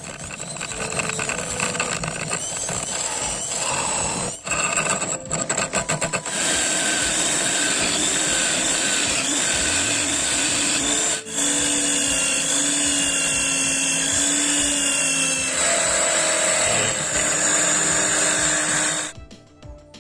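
Electric drill running as a makeshift lathe, spinning a wooden wheel in its chuck while a hand chisel cuts grooves into the wood. The steady run drops out briefly about four seconds in, stutters on and off for a couple of seconds, dips again near the middle, and cuts off suddenly about a second before the end, with music underneath.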